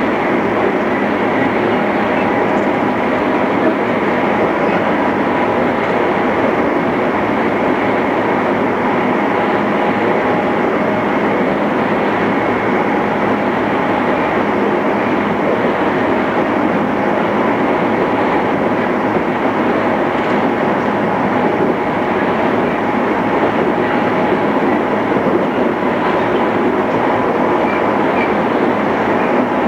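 Interior running sound of a JR East 211 series electric train with internal-fan traction motors, cruising steadily between stations: an even rumble of wheels on rail with a faint, constant motor tone.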